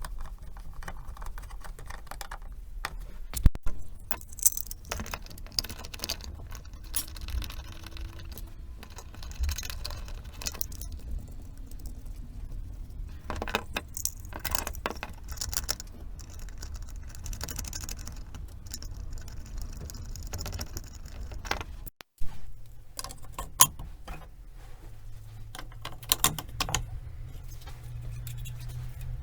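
Light clicks and metallic clinking of small parts being handled, scattered irregularly over a low steady hum, with a brief dropout about three quarters of the way through.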